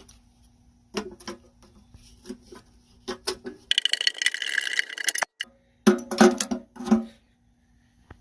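Metal parts of a car's front impact bar and chassis knocking and clinking as the bar is worked loose. About halfway through comes a burst of harsh, high-pitched noise lasting a second and a half, and a few loud ringing metal knocks follow near the end.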